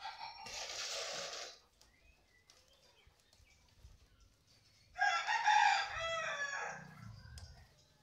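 A rooster crowing once, starting about five seconds in and lasting about two and a half seconds. Near the start there is a short rasping noise of just over a second.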